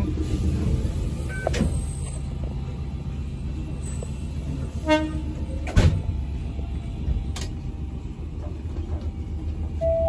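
Interior of a Choshi Electric Railway electric train running along the line: a steady low rumble of wheels and running gear on the track, broken by a few sharp clicks and knocks.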